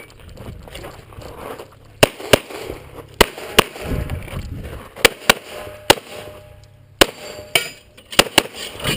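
A 9mm EAA/Tanfoglio Witness Elite Match pistol fired about eleven times, starting about two seconds in, mostly as quick double taps with short gaps between the pairs. This is a timed practical-shooting stage run.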